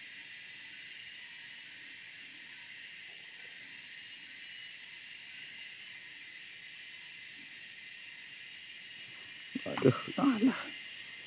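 Steady high-pitched hiss of night-time forest-stream ambience. Near the end, a man gives a short, loud exclamation in two or three quick bursts.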